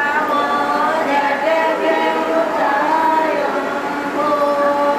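A group of voices singing together, several people holding long notes at once.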